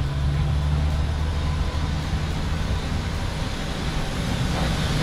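Steady low mechanical hum of the machinery around a parked airliner at a jet bridge, with a faint even rush of air over it.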